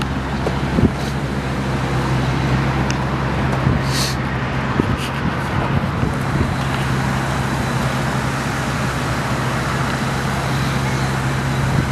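A 2000 Ford F-350 Super Duty's 6.8-litre V10 gas engine idling steadily, with a few faint clicks.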